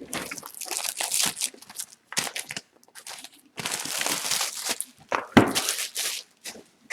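Crinkly plastic wrapping being handled and torn in several irregular bursts, with one sharp knock about five seconds in.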